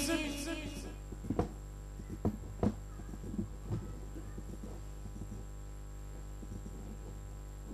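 Reverberant sung vocal dying away in the first second, then a steady low electrical hum with a few faint, short clicks.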